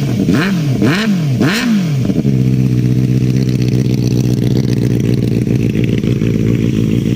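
Benelli 600i inline-four motorcycle engine revved in about four quick throttle blips, then settling into a steady idle about two seconds in, with a loud exhaust.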